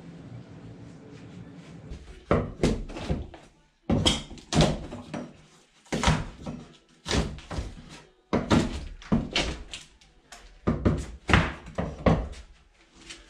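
Hand demolition of a wooden-framed interior wall: heavy, irregular blows and thuds as studs and board panels are knocked apart. The blows start about two seconds in, after a low steady hum, and come in quick clusters.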